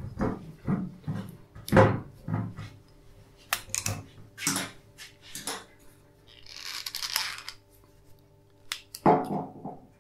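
Wire cage and foil being worked off a corked beer bottle: a run of short clicks, crinkles and scrapes of wire and glass in the hands. There is a brief rustling hiss about seven seconds in, as the cork is twisted.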